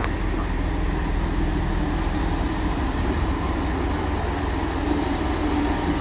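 Diesel multiple-unit passenger train running steadily at the station platform, a continuous low rumble with a faint steady hum over it.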